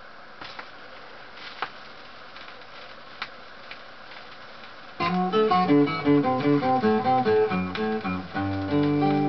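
Philips 22 GA 632 record player playing a 45 rpm single: the stylus runs in the lead-in groove with a faint hiss and a few crackles. About five seconds in the song's intro starts, with quick plucked notes and then held chords from about eight seconds in.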